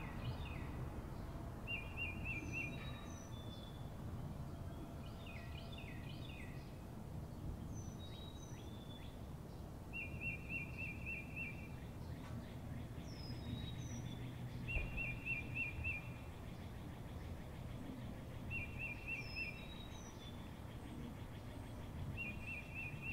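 Birds calling over a steady low rumble of outdoor ambience: a short, rapid trilled phrase recurs five times, with scattered short high chirps in between.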